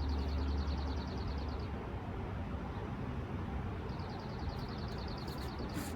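Steady low hum of a smoke leak detector's air pump pushing smoke into a Porsche 924 Turbo's intake system. A fast, high trill of ticks sounds twice: once at the start for under two seconds, and again from about four seconds in for about two seconds.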